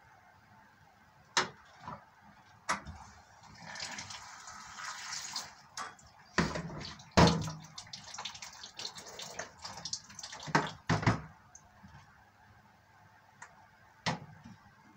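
Kitchen work at a sink: a few sharp knocks, water running for a second or two, then a run of irregular knocks and clatter, loudest about seven seconds in, as a plastic basin and utensils are handled.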